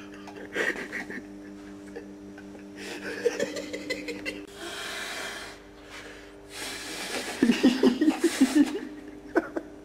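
A person blows up a balloon by mouth in long, hissing puffs of breath, with laughter among the later puffs. A steady hum runs under the first half.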